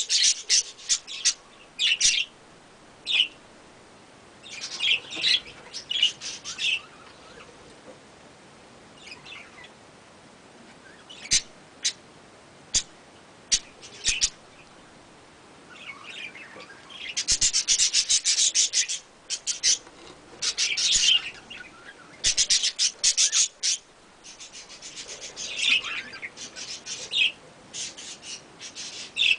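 Budgerigar chicks chirping in repeated bursts of rapid, high calls, with quieter gaps between.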